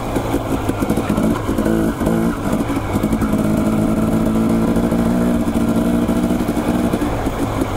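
Dirt bike engine running at a steady cruising throttle. Its note rises and falls a little in the first few seconds, then holds even.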